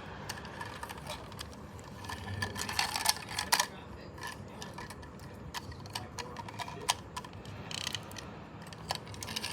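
Irregular mechanical clicking and rattling, a quick run of clicks clustered about two to three and a half seconds in and more near the end.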